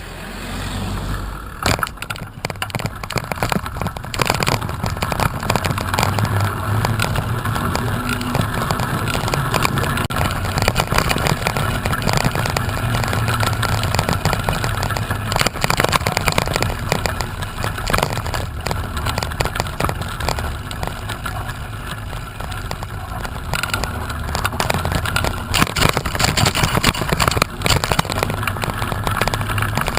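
Wind rushing over the microphone, with many small knocks and rattles throughout.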